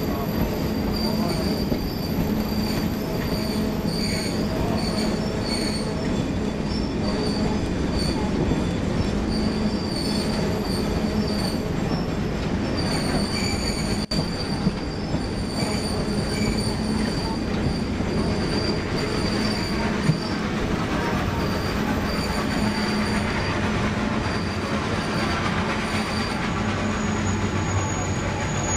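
Train cars rolling on the rails, heard from an open passenger car: a steady rumble with short high wheel squeals repeating in quick runs, thinning out for a while in the middle.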